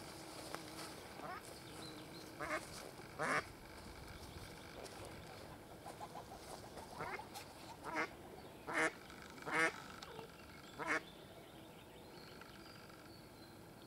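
Ducks quacking: a series of short, separate quacks at irregular intervals, with a run of louder ones in the second half.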